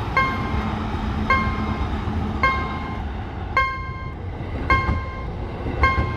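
Railroad crossing warning bell striking six times, about once a second, each ring fading before the next. A steady low rumble, typical of a train passing, runs underneath.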